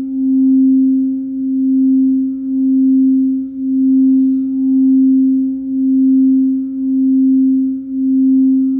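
Quartz crystal singing bowl sustaining one steady low note, with a fainter ring an octave above, its loudness wavering evenly about once a second.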